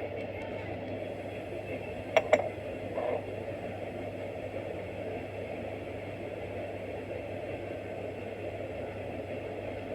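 Steady room background noise with a low hum, broken by two sharp clicks about two seconds in, from the laptop being handled as it is switched on.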